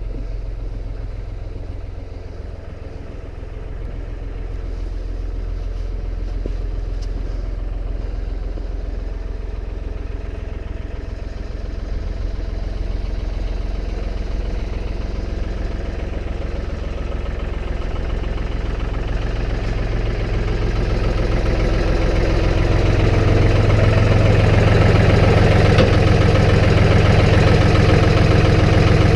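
Engine of a snow-plowing vehicle running steadily, getting louder about two-thirds of the way through.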